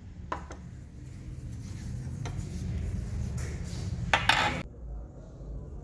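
Plates and cutlery clinking: a few light clicks, then a louder half-second clatter about four seconds in, over a steady low room hum.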